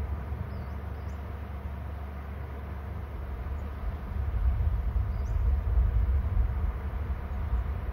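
Wind buffeting an outdoor camera microphone: a steady low rumble that grows stronger and gustier about halfway through. A few faint high bird chirps sound twice near the start and once more later.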